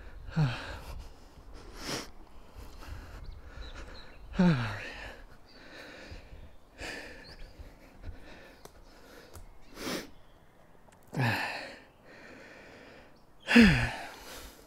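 A man breathing hard: about seven short voiced huffs, each falling in pitch, coming every two to three seconds, with the loudest near the end.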